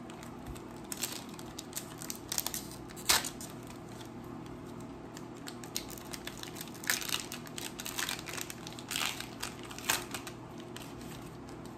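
Foil Pokémon booster pack wrappers crinkling and trading cards being handled: scattered short rustles, the sharpest about three seconds in.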